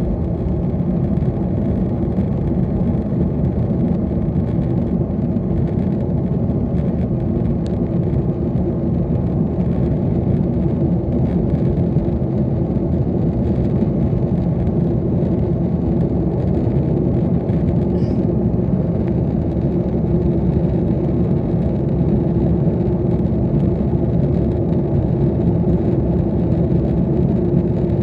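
A Boeing 737 MAX 8's CFM LEAP-1B jet engines at high power heard inside the passenger cabin during liftoff and climb-out: a loud, steady rumble with a steady low hum running through it.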